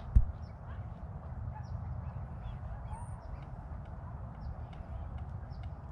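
Small birds chirping in many short, high, falling calls, over a steady low rumble. A single sharp knock comes just after the start and is the loudest sound.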